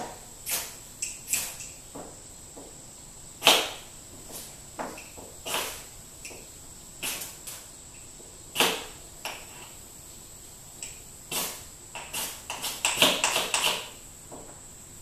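Ferrocerium fire-starter rod scraped hard with a striker over tinder: about a dozen short, sharp scrapes at uneven intervals, with a quick run of them near the end. The sparks are not lighting the tinder.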